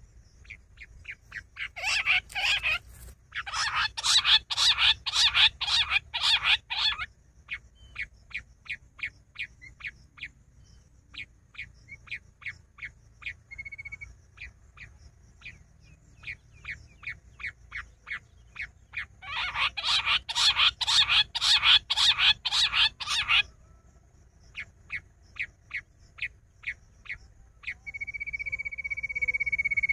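Quail calling: long series of short, rapidly repeated notes that twice build into dense, loud runs of calls. Near the end a steady high note sets in.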